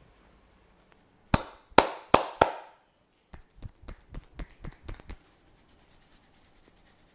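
A masseur's hands striking the body in percussive massage. About a second in come four loud, sharp slaps in quick succession. They are followed by a quick run of about ten lighter pats over roughly two seconds.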